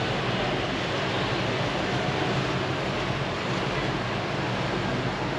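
Steady city street noise: a constant wash of traffic with a low engine hum from motorbikes passing on the street.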